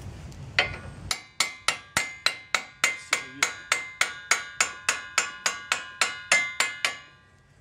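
Brass hammer tapping a socket held against the end of a CV axle, driving the axle out through the wheel hub. The taps are steady and quick, about three a second, each with a short metallic ring, and they stop shortly before the end. The axle is stuck in rusted hub splines.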